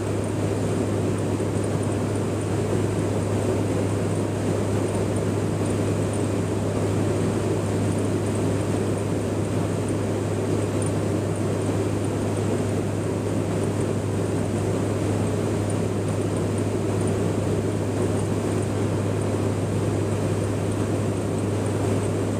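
Steady drone of a KC-130J Hercules tanker's four turboprop engines and propellers, heard from inside the aircraft during aerial refuelling: a constant low hum over dense rushing air noise, with no change in pitch or level.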